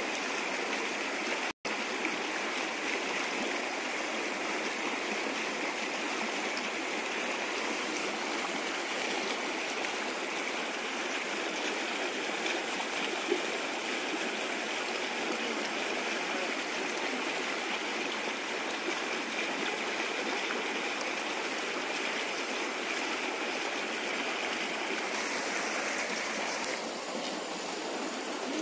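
Steady rushing of a swollen, muddy river flowing past a rock, with no other sound standing out. The sound cuts out for an instant about a second and a half in, and turns slightly duller and quieter near the end.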